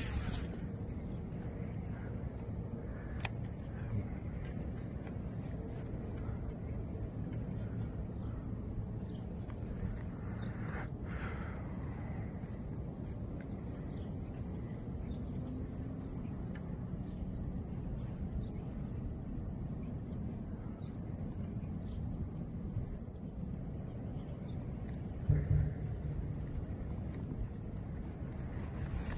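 Insects trilling steadily in a single continuous high-pitched tone, over a low background rumble, with one sharp thump near the end.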